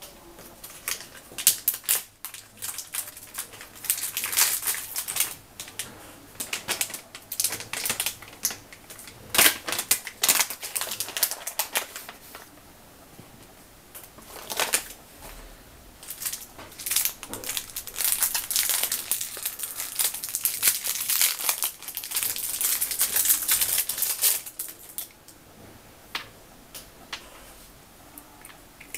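Clear plastic zip-lock bag crinkling in irregular bursts as it is handled and opened by hand. The crinkling dies down about 25 seconds in.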